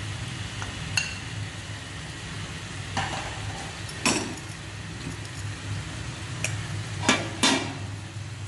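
Chicken pieces sizzling in a metal kadai over a high gas flame, with a slotted metal ladle scraping and knocking against the pan about six times, most sharply about seven seconds in.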